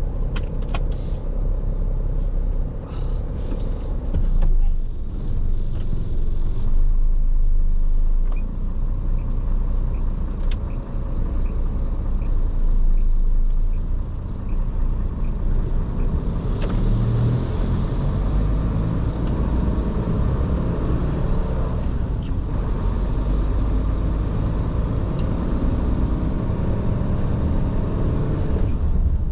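Large tractor-trailer truck on the move: steady engine and road noise, with a light regular ticking about one and a half times a second for a few seconds in the middle, and the engine note rising near the end.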